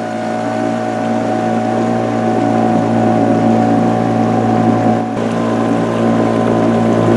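Boat's outboard motor running steadily under way: a loud, even engine drone.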